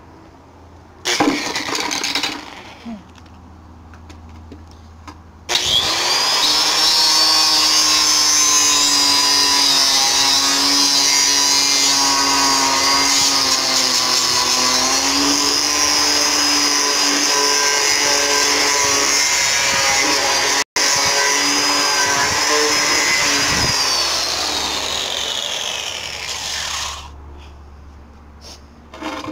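Angle grinder with a sanding disc running against the edge of a wooden board: a loud, steady high whine after a brief first burst, its pitch sagging slightly as the disc bears on the wood, then a falling whine as it winds down near the end.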